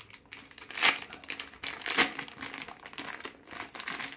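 Thin clear plastic bag crinkling as it is handled with a small toy piece inside, with irregular crackles and the sharpest ones about one second and two seconds in.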